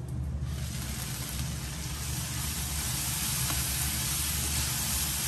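Sprouted mung beans and chana with onions sizzling in a frying pan, stirred with a wooden spatula: a steady frying hiss that fills in about half a second in, over a low hum.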